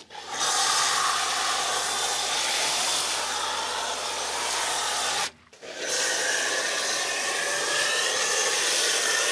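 Foam cannon spraying a degreaser foam into a truck's fender wells: a steady hiss that stops for a moment about five seconds in, then starts again.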